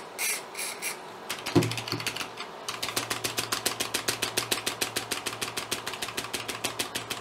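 A few short hisses of electronic contact cleaner sprayed into an Amiga 1000 keyboard switch and a single thump. Then the down-arrow key clicks rapidly and evenly, about seven presses a second, working the cleaner into a key contact that had been dead.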